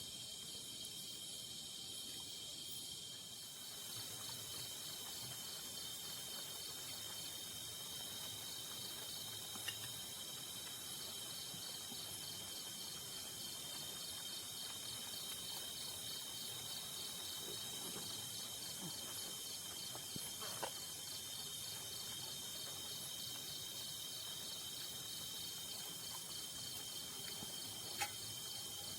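Night-time insect chorus of crickets and similar insects, several high steady trills at once, with a fast pulsing call joining about four seconds in. A few faint clicks are heard, around the middle and near the end.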